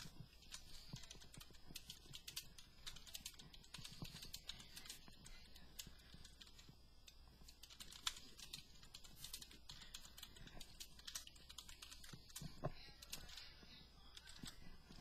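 Computer keyboard being typed on: quick, irregular key clicks, faint.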